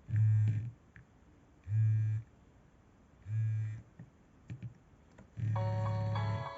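Nokia E65 mobile phone's vibrating alert buzzing in short pulses about every second and a half. About five seconds in, an electronic ringtone melody starts over the buzz.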